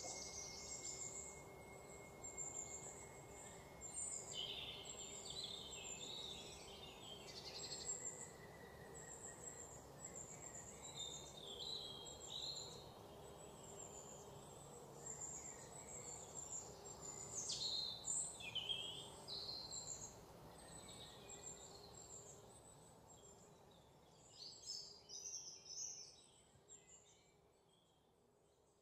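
Faint birdsong: scattered chirps and short gliding whistles from small birds over a low steady hiss, dying away near the end.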